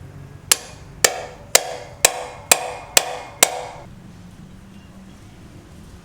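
Seven hammer blows at about two a second, each with a short ringing tone that dies away after the last blow.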